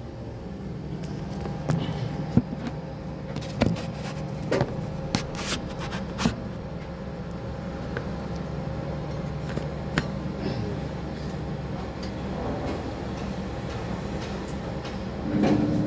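Steady low machine hum inside a crane operator's cab, with scattered sharp clicks and knocks: several between about two and six and a half seconds in, and one more about ten seconds in.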